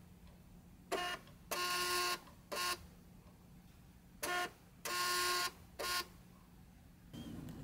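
Jingchen compact thermal label printer printing two labels one after the other. Each label is a short motor whir, a longer whir of just under a second as the label feeds out, and another short whir.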